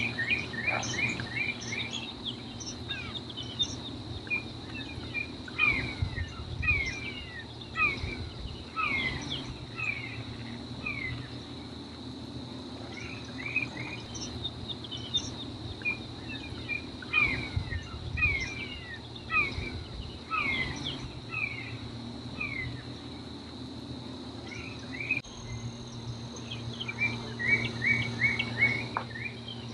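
Wetland ambience: small birds giving many short, falling chirps, with a quick run of them near the end, over a steady high insect drone.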